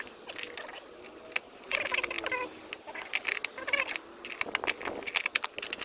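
Steel hurricane anchor screw squeaking and clicking in short bursts as it is turned out of its anchor by hand, using two wing nuts locked together as a grip.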